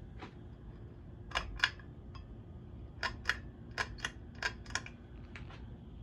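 Pull-chain switch of a Hunter Coastal Breeze Plus ceiling fan clicking ten times in five quick pairs, over a faint steady hum, with the fan starting up.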